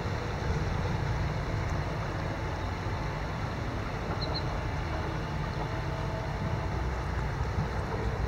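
Steady rush of a shallow river running over a gravel bed, with a low rumble of wind on the microphone. Two brief high chirps sound about four seconds in.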